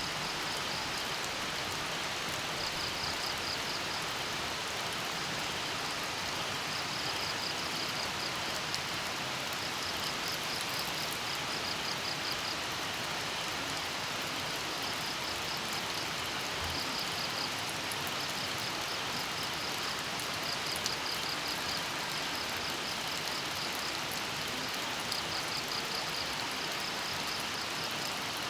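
Steady rain falling, with a cricket chirping in short pulsed trills that recur every two to three seconds.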